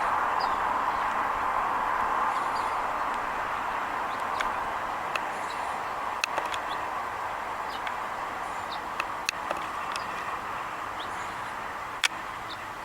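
Roadside outdoor ambience: a steady rush of passing traffic that slowly fades away, with faint short bird chirps and a few sharp clicks, the loudest near the end.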